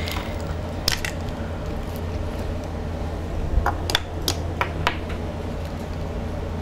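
Light clicks and taps of small parts and tools being handled on a workbench: one about a second in, then a quick run of them between about three and a half and five seconds in, over a steady low hum.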